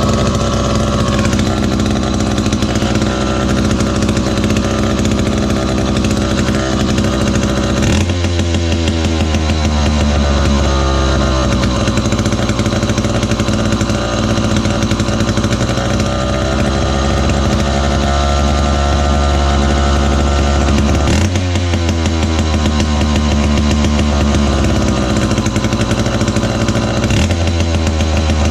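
Lancaster Pump 655 chainsaw's two-stroke engine running steadily on the bench, its speed stepping abruptly about 8 seconds in, again around 21 seconds and once more near the end.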